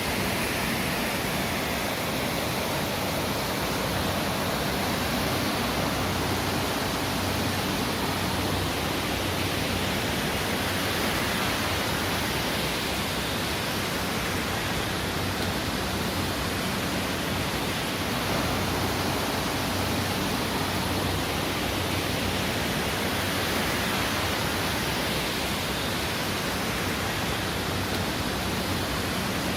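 The Mandakini river flowing, a steady unbroken rush of water.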